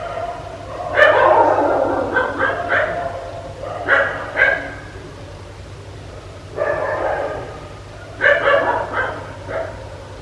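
A dog barking in short runs of barks, about five bouts separated by brief pauses.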